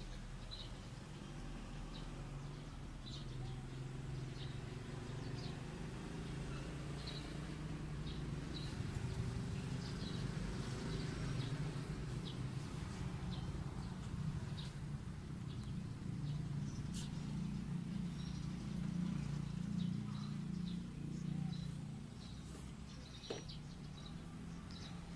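Small birds chirping, short high chirps about once a second, over a steady low rumble that swells in the middle and drops away near the end.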